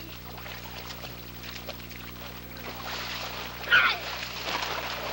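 Water splashing in a small inflatable pool as a child is splashed about, with a child's short high squeal about four seconds in.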